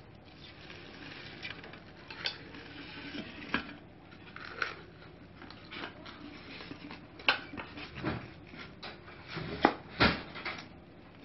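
Oxone aluminium pressure cooker being handled and turned over, its metal body giving scattered clinks and knocks, the loudest ones in the last few seconds.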